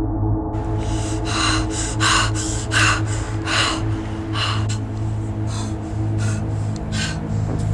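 A woman's sharp gasping breaths, about three every two seconds, over a steady low droning music bed.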